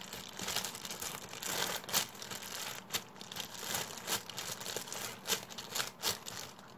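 Clear plastic zip bag crinkling as a squishy foam toy inside it is handled and squeezed, a dense irregular run of crackles.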